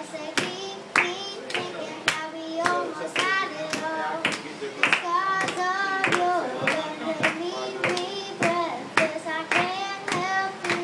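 A young girl singing into a microphone, her melody running on without pause, while people clap along in a steady beat of about two claps a second.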